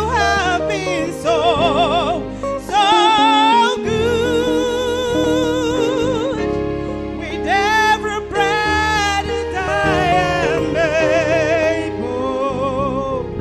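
Background music: a solo singing voice with strong vibrato over sustained instrumental accompaniment.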